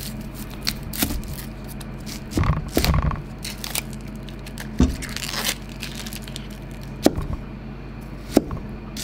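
A yellow onion being trimmed and peeled by hand: several sharp knocks of a kitchen knife on a plastic cutting board, with the dry papery onion skin tearing and crinkling as it is pulled off.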